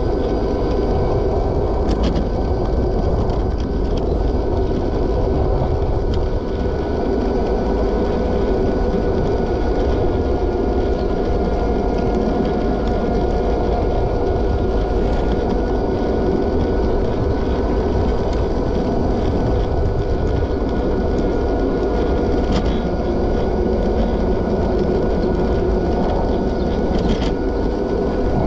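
Steady wind rumble on the microphone of a camera moving along a bike lane, with a constant whine of several steady tones underneath.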